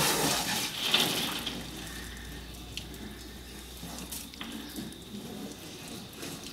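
Water running and splashing onto a wet concrete floor during an elephant's warm-water bath. The water is loudest in a gush about a second in, then settles to a quieter steady wash.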